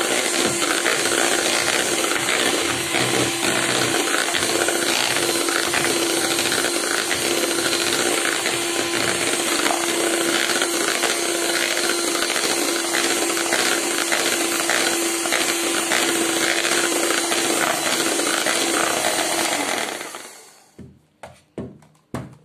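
Electric hand mixer running steadily with a hum, its twin beaters whipping cream in a plastic bowl. It switches off about twenty seconds in, followed by a few short knocks.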